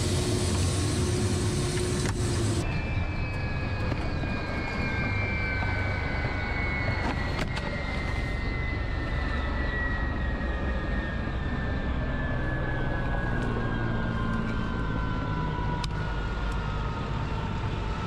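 A landed helicopter's turbine engines winding down: a whine that falls slowly and steadily in pitch over a low rumble, with a few sharp clicks. Before an abrupt cut near the start, a steady higher tone is heard inside the cockpit.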